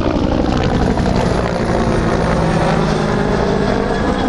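Helicopter flying low overhead, its rotor and engine sounding steadily, the pitch sinking slightly as it passes.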